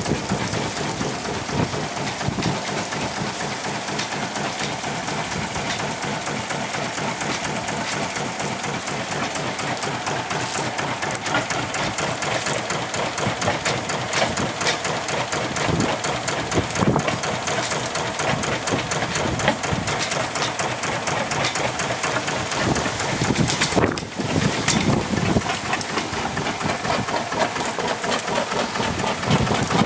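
Volvo Penta MD1B single-cylinder inboard diesel running steadily with an even, rapid knocking beat. The level dips briefly about three-quarters of the way through.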